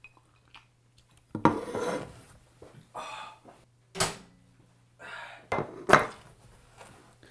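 Crockery clattering in several short bursts, with sharp knocks on a plate about four and six seconds in, as peas are spat out and plates are handled.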